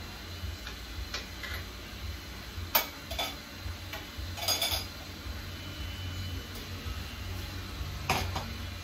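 Scattered clinks and knocks of kitchen utensils against cookware, the sharpest about three seconds in, over a low steady hum.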